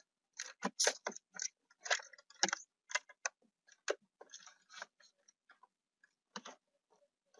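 Irregular light clicks and rustles of cables and plastic connectors being handled and routed through the back of a car head unit, thinning out after about five seconds.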